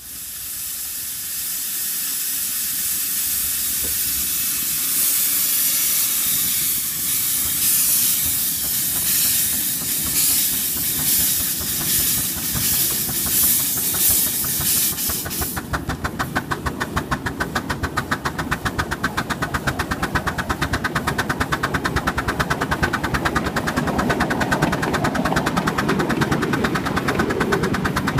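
Miniature steam locomotive pulling away: a loud steam hiss that cuts off suddenly about halfway through, then rapid, even exhaust beats as it runs along the track.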